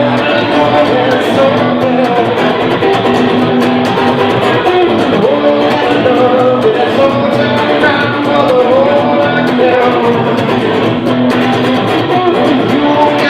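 Live rock-blues band playing an instrumental passage, an electric guitar line with notes that bend up and down over a steady backing of bass and rhythm.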